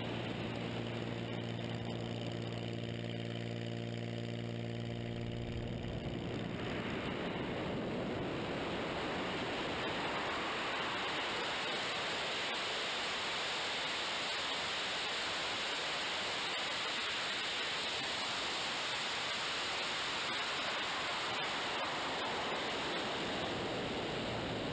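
Zlin 50 aerobatic plane in flight, heard from a camera mounted outside on the airframe: a steady propeller-engine drone under a rush of wind for about the first six seconds. The engine tone then drops away, leaving mostly even wind rush through the manoeuvre.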